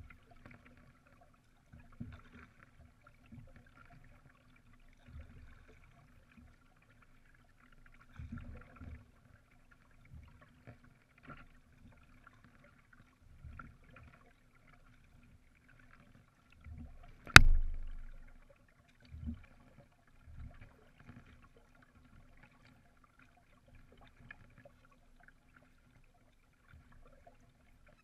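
Canoe being paddled through calm water: soft, irregular paddle strokes and water slapping the hull every one to three seconds. A little after halfway there is one sharp knock, the loudest sound.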